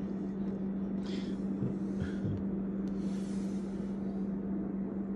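A steady low hum over a constant hiss, as from a running appliance. A few faint soft rustles or knocks come about one and two seconds in as the cardboard box is handled.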